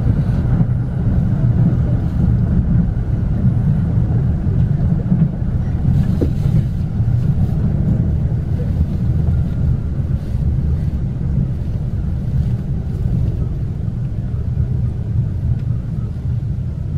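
Electric commuter train heard from inside the passenger car: a steady low rumble of wheels on rails, growing gradually quieter as the train slows into a station.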